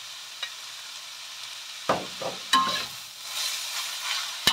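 Shredded young papaya sizzling in a hot oiled wok. About halfway through, a metal spatula starts scraping and tossing it around the wok, and near the end it strikes the wok once with a sharp clank.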